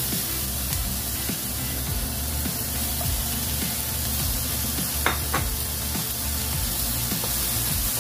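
Sliced onion, pork and carrot sizzling as they are stir-fried in a nonstick pan, with two sharp clicks about five seconds in, over background music.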